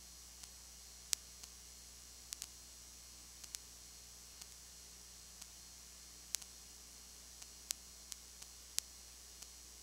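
Recording noise only: a steady hiss and low hum broken by irregular sharp clicks, about seventeen, the loudest a little after one second in and near six, seven and a half and nine seconds. No crowd, whistle or sound of the play is heard.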